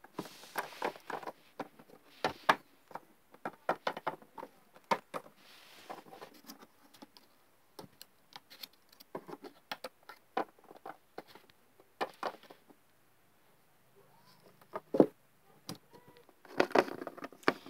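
Plastic Littlest Pet Shop figurines tapped and shuffled along a varnished wooden table as they are walked by hand: irregular small clicks and taps, thick at first and then scattered, with a short lull about three-quarters of the way through.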